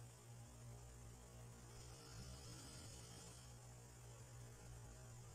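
Near silence: a faint, steady low hum with a light hiss, the background noise of the recording.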